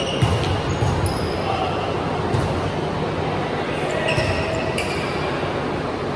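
Indoor volleyball rally: the ball is struck several times with sharp slaps, and sneakers squeak briefly on the wooden court, all echoing in the gym over a steady background noise.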